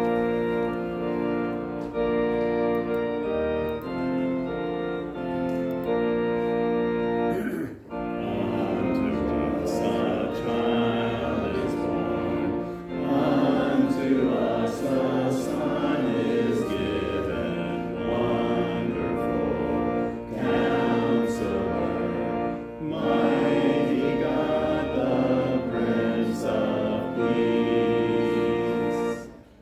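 Organ music playing held chords, breaking off briefly about eight seconds in, then going on in a fuller, moving passage until it stops just before the end.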